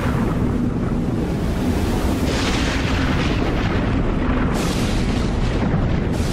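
Cinematic logo-intro sound effects: a loud, continuous deep rumble, with surges of hissing noise coming in about two seconds in, again a little past four seconds, and near the end.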